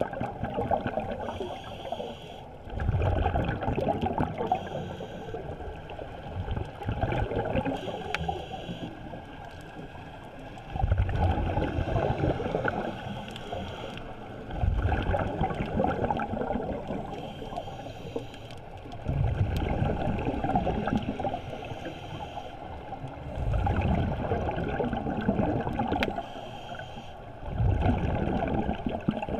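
Scuba diver breathing through a regulator underwater. Each breath is a short hiss on the inhale, then a louder bubbling rush of exhaled air, repeating about every four seconds.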